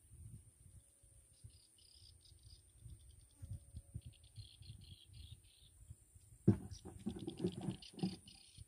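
Wind buffeting the microphone in irregular low gusts, with insects chirping in short trills. About six and a half seconds in, a louder scraping noise starts sharply and lasts about a second and a half.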